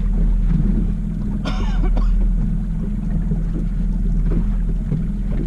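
A boat's outboard motor runs steadily at trolling speed, with wind on the microphone. A short voice sound, like a cough or grunt, comes about a second and a half in.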